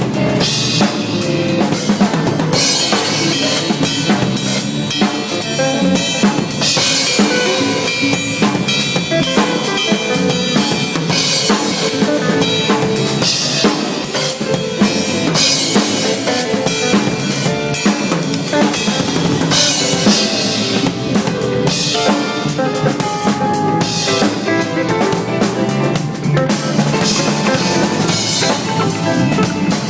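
Drum kit played live in a jazz-fusion jam: kick drum, snare and rimshots, with recurring stretches of cymbal wash.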